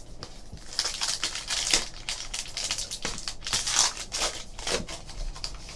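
A 2014 Upper Deck Goodwin Champions trading card pack being torn open, its wrapper crinkling and crackling in quick irregular bursts from about a second in until near the end.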